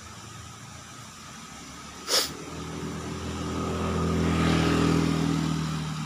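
An engine's steady hum that swells over a few seconds and then eases off, like a vehicle passing, with one sharp click about two seconds in.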